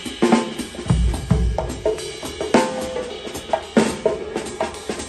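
Drums struck in an uneven, loose pattern during a sound check, sharp hits mixed with deep bass-drum thumps about a second in.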